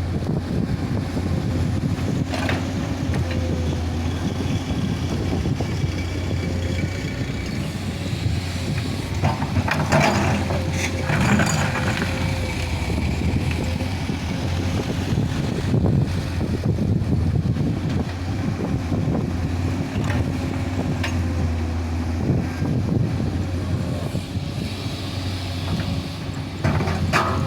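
Komatsu PC200 hydraulic excavator's diesel engine running steadily under work, a constant low drone with a thin steady tone above it. There are a few short, louder noises about a third of the way through and again near the end.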